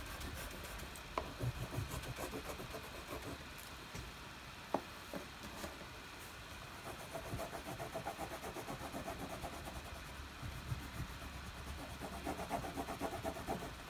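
Wax crayon scribbling back and forth on thick paper in quick, even strokes, faint, with a couple of light clicks as crayons are handled.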